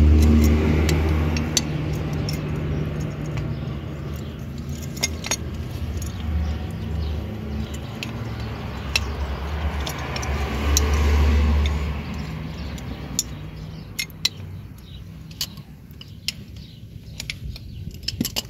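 Light metallic clicks and clinks of Pride rear drum-brake shoes and their adjuster being handled, over the low hum of a vehicle engine running that swells twice, near the start and about ten seconds in.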